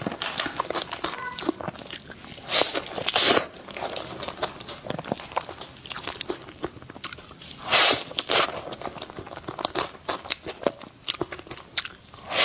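Close-miked eating sounds: bites and chewing of a soft dessert, with many small mouth clicks and a few louder bites.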